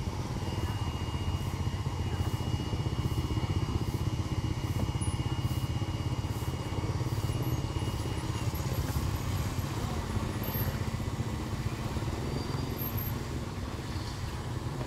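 A motor engine running steadily, a constant low rumble, with a faint steady high whine that stops about halfway through.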